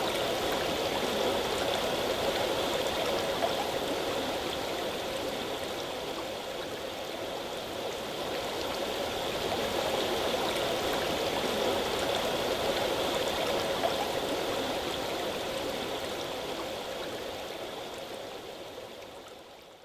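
Rushing river water, a steady wash that fades out near the end.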